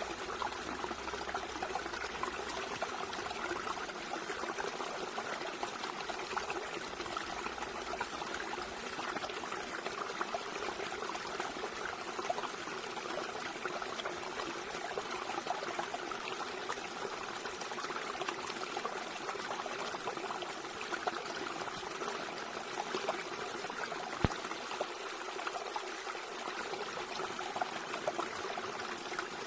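Running water trickling steadily, an even flowing sound with no pauses. A single sharp click stands out about three quarters of the way through.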